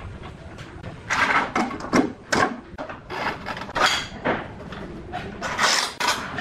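Irregular metal clanks, knocks and short scrapes of a manual rail tile cutter being handled on a large ceramic tile: the guide rail and cutting head set down and positioned, with a longer scrape near the end.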